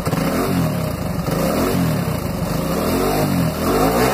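Motorcycle engine being revved up and down about four times, its pitch rising and falling with each blip of the throttle.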